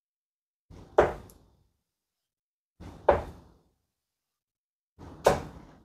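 Three steel-tip darts thudding one after another into a Winmau Blade 5 bristle dartboard, about two seconds apart, each a short sharp thud.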